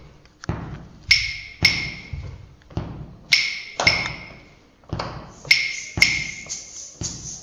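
A percussion instrument struck about a dozen times at uneven intervals. Each sharp hit rings briefly at a high pitch and fades.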